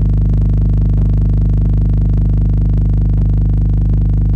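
A loud, steady, low single-frequency test tone played through the Earthquake Supernova MKVI-15 dual 15-inch subwoofer while its gain is being turned up to set the subwoofer level.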